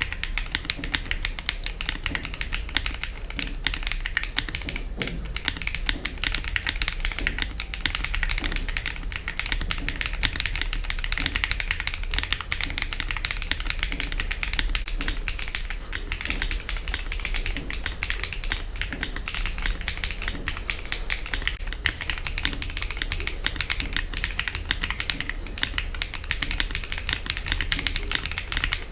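Continuous fast typing on a Choice65 gasket-mount aluminium keyboard with Outva Yang linear switches, a polycarbonate plate and MW Coloradas keycaps: a dense, steady stream of keystrokes.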